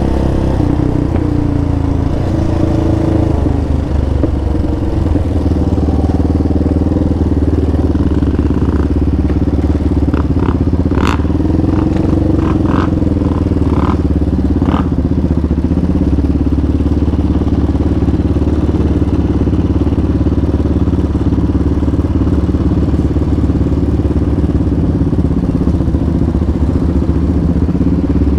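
Yamaha Raptor 700R ATV's single-cylinder engine running at low speed and then idling steadily, with a short run of sharp clicks near the middle.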